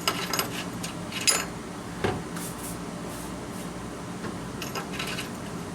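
A few scattered light metal clicks and knocks as the idler pulley's bolt is started and turned down by hand on a mower deck, over a faint steady hum.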